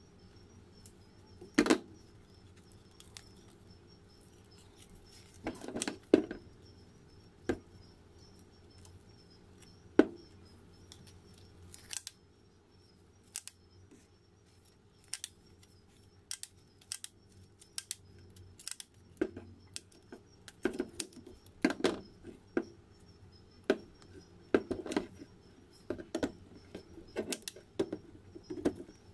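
Old black paint being scraped and chipped off the handles of a rusty pair of scissors with a metal blade: irregular sharp scrapes and ticks, sparse at first and coming thick and fast in the second half.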